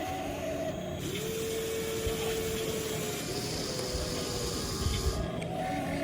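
Small electric motors of an RC excavator whining, starting and stopping as its arm and tracks move, each whine sliding up in pitch as it spins up.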